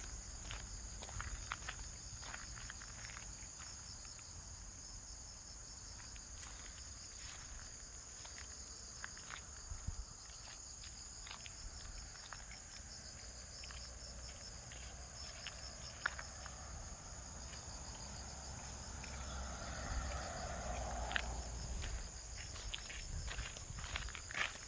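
A steady chorus of crickets or similar insects trilling in a fast, even pulse, with scattered light footsteps and clicks underneath.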